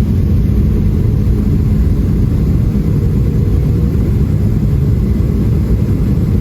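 Steady low rumble of engine and airflow noise inside the cabin of a Boeing 737-700 airliner, unchanging throughout.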